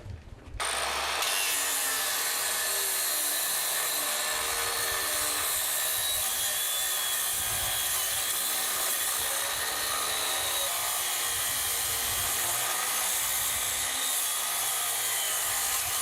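Angle grinder cutting through the steel of a rifle: a steady, loud grinding hiss with a faint wavering high whine, starting about half a second in.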